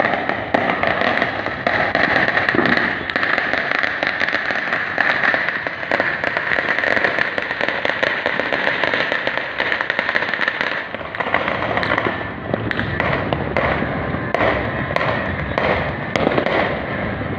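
Many firecrackers and fireworks going off at once in a dense, continuous crackle. About eleven seconds in it thins to separate sharp pops.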